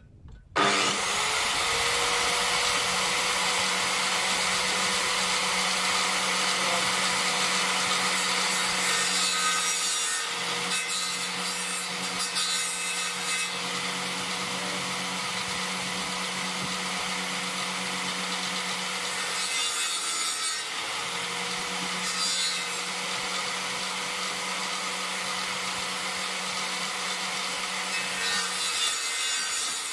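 Electric power saw mounted blade-up beneath a plank bench switches on about half a second in and runs with a steady whine. Three times its tone dips under load and a rasping cutting noise rises as a birch pole is fed across the blade to trim off knots.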